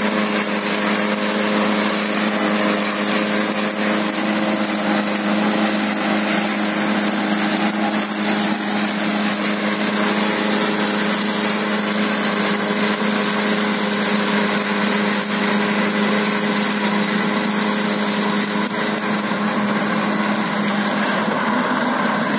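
John Deere 5075 tractor engine running steadily under load while driving a Happy Seeder through straw stubble, with a constant hum of unchanging pitch.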